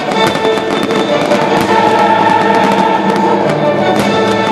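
Music for a pyro-musical fireworks display, with many sharp cracks and pops of firework shells bursting over it.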